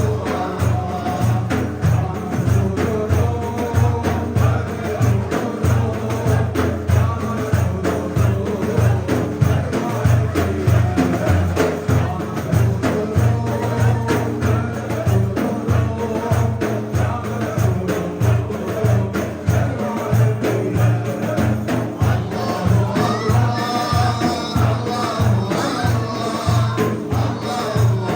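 Sufi ilahi (Turkish devotional hymn) sung over a steady frame-drum beat.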